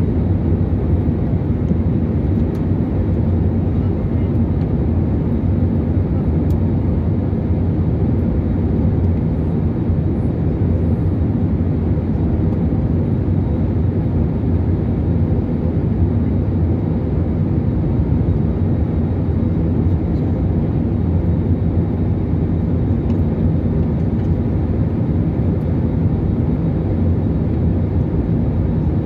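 Jet airliner cabin noise heard inside the cabin by the wing: the turbofan engines and airflow make a steady low rumble with a faint hum, unchanging throughout, as the plane descends to land.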